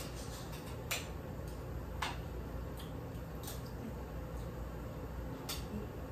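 Table utensils clicking against plates and a plastic salad container, a few separate sharp clicks over a low steady hum.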